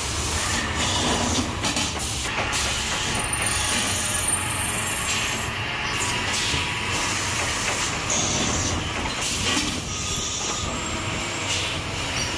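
Electric lathes running in a machine shop while turning brass parts: a steady motor hum with hiss and scattered metallic clanks and rattles.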